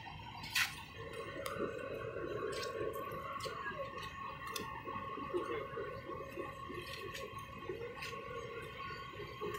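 WDM3A diesel locomotive's 16-cylinder ALCO engine running as the locomotive is brought up to the coaches for coupling, a steady whine over a grainy rumble. A sharp click about half a second in.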